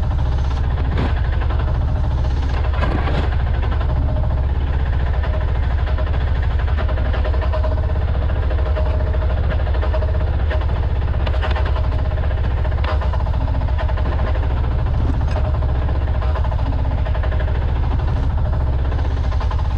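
Chinese mini excavator's small engine running steadily, with scattered sharp knocks.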